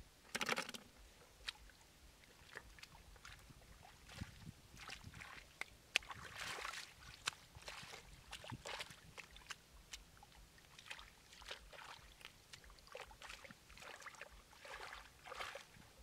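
Hands splashing and sloshing in shallow muddy water while picking snails by hand, with scattered small clicks and knocks. A few brief louder splashes stand out: about half a second in, around the middle, and near the end.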